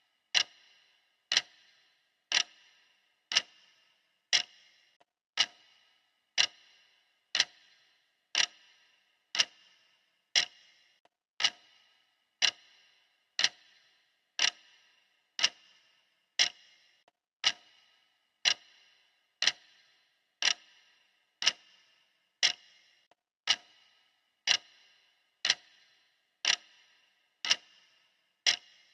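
Clock ticking steadily, one sharp tick a second, each tick with a brief bright ring.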